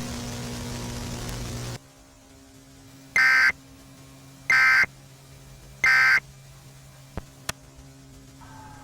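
Emergency Alert System end-of-message tones: three short bursts of the screechy SAME digital data signal, about a second apart, closing an alert. A low hum and hiss come before them and two sharp clicks after, and a siren begins to wail faintly near the end.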